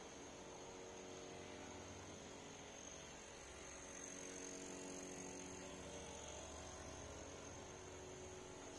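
Faint steady room tone: a low hum with a thin high-pitched whine over it, the low end swelling slightly about four seconds in.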